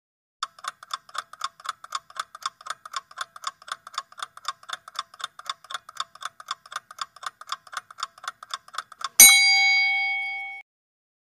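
Countdown-timer sound effect: a clock ticking quickly and evenly for about nine seconds, then a single bell chime that rings out and fades, marking that the time to answer is up.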